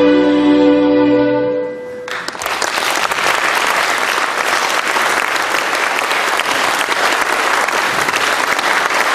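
Orchestra with strings holding the final chord of a Baroque minuet, which stops about two seconds in. Audience applause follows and keeps going.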